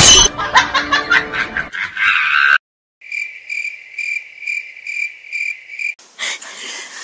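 Music dies away, then after a short silence a cricket chirp sound effect plays for about three seconds: a high trill that pulses a little over twice a second and cuts off suddenly. Near the end a new clip starts with faint handling noise.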